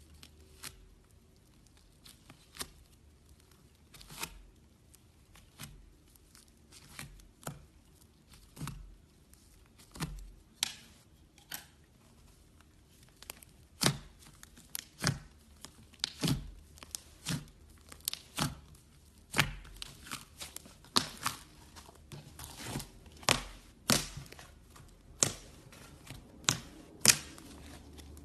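Slime handled close to the microphone, making irregular sharp crackles and pops: sparse at first, then coming faster and louder about halfway through.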